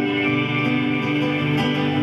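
Acoustic guitar and violin playing an instrumental passage together, the guitar strummed under long held notes.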